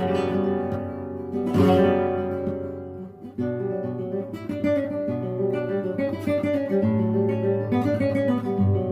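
Acoustic guitar music: two full strummed chords, then a picked melody of single notes from about three seconds in.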